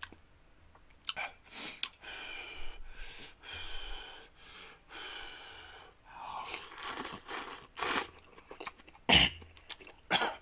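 A man slurping spicy ramen noodles from chopsticks and chewing, in a string of short slurps and wet mouth noises. Near the end comes one sudden loud burst of breath, the loudest sound, as he reacts to the heat of the very spicy broth.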